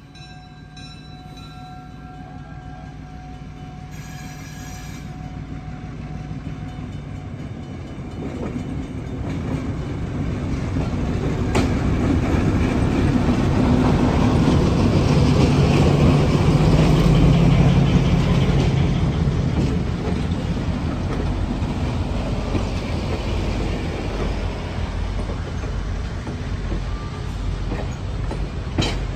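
EMC SW1 switcher locomotive's six-cylinder EMD 567-C diesel engine running as it pulls a passenger train past, growing steadily louder to a peak a little past halfway. Then the passenger cars' wheels roll along the rails.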